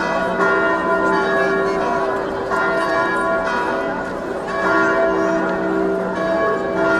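Church bells ringing, with fresh strokes about every two seconds whose tones hang on, over the hubbub of a large crowd.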